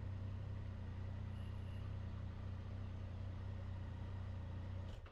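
Triumph Tiger 800 XC's three-cylinder engine running with a steady, even hum, which cuts off abruptly near the end.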